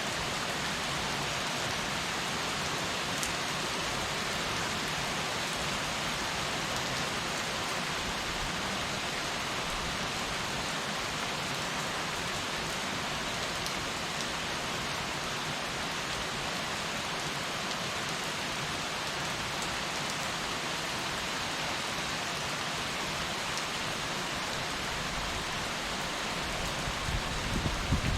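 Heavy rain falling steadily, an even hiss of drops on surfaces. Low rumbling swells in near the end.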